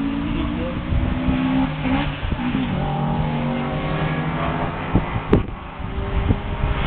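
A car's engine out on the circuit, revving and easing off as it is driven hard through the corners, its pitch climbing and dropping with the throttle and gear changes. A few sharp thumps sound about five seconds in.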